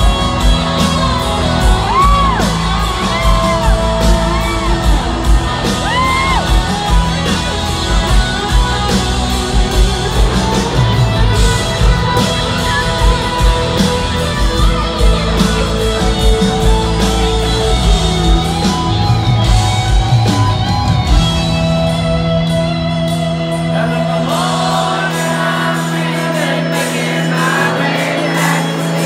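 A live country-rock band playing loud through a stadium PA, heard from the crowd with the hall's echo: drums, bass and an electric guitar lead with bending notes, with singing and crowd shouts over it. The drums drop out about three-quarters of the way through, leaving held chords.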